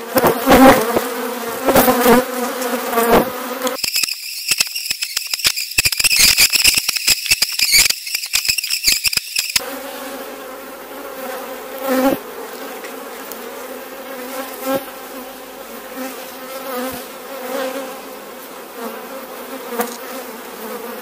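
Honeybee colony buzzing around an opened hive as a frame of brood is held up: a steady hum of many bees, with louder swells in the first few seconds as bees fly close by.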